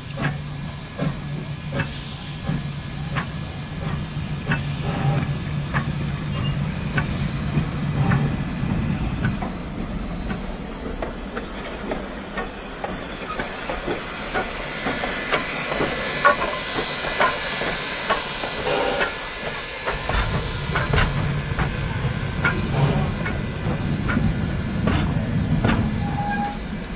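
Queensland Railways C17-class steam locomotive No. 974 and its wooden carriages rolling slowly past at close range, wheels knocking over rail joints with a low rumble. A steady high squeal joins about ten seconds in and holds to the end.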